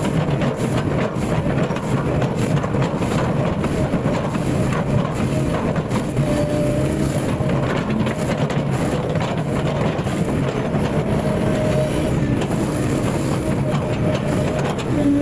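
Excavator diesel engine running steadily under load, with a brief hydraulic whine now and then, over constant clattering and cracking as the machine chops up felled oil palm trunks.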